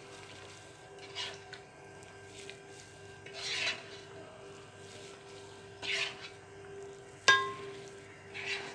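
A ladle scraping and scooping chicken curry onto rice in a steel cooking pot, with a scrape every couple of seconds. About seven seconds in, there is one sharp clank with a brief ring, the loudest sound. A faint steady hum runs underneath.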